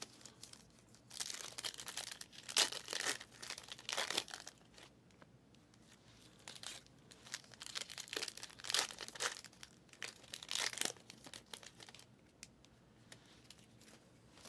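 Plastic trading-card packaging being handled: crinkling and tearing of wrapper or shrink-wrap, in two spells of irregular rustling with quiet pauses between.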